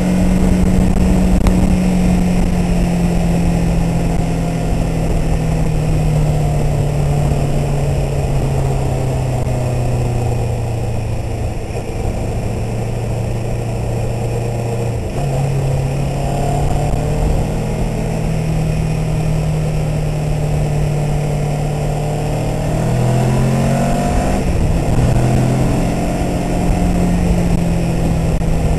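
Motorcycle engine and exhaust heard from on the bike while riding: the engine note sinks slowly for about thirteen seconds as the throttle eases, steps up abruptly about halfway through, then rises and falls several times near the end as the rider works through the bends. Low wind rumble on the microphone underneath.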